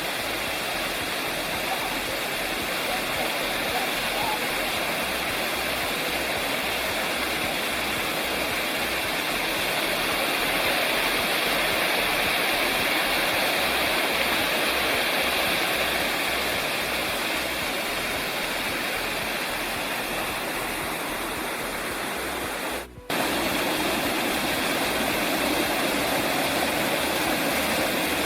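Steady rushing of cascading creek water, cut off for a moment about 23 seconds in before the rushing resumes.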